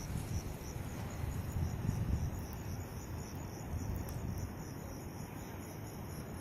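Crickets chirping in a steady high-pitched pulse, about five chirps a second, over a low rumble.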